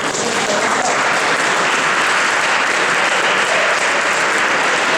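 Crowd applauding steadily, building slightly over the first second.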